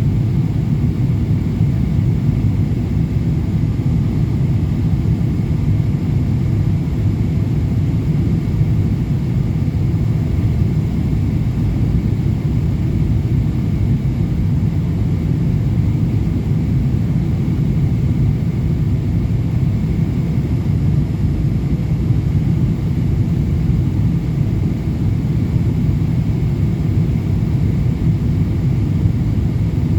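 Steady low rumble of a Boeing 777-200LR in flight, heard from inside the passenger cabin: engine and airflow noise during the descent toward landing.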